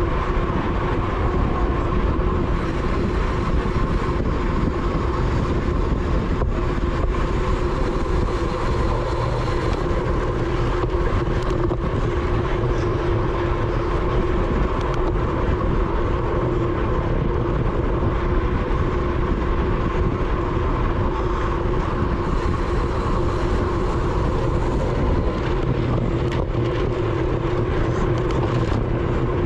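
Steady wind rush on the onboard action camera's microphone of a road racing bicycle at race speed, with heavy low rumble and a steady hum underneath.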